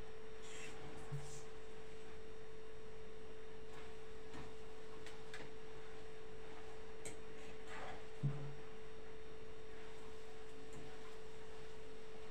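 A steady, unbroken pure tone at one pitch, like a hum or whine, with a few faint light taps and scrapes of a fork mixing spaghetti in a cooking pan.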